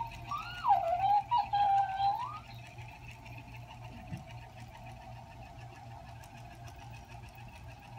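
A Mimicry talking hamster plush toy plays back recorded speech in a high, sped-up chipmunk voice for about the first two and a half seconds. This is followed by a steady whirring hum from the toy's small motor as it moves off.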